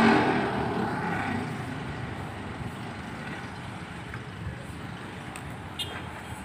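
A motor vehicle engine passing close by and fading away over the first couple of seconds, leaving a steady low engine rumble.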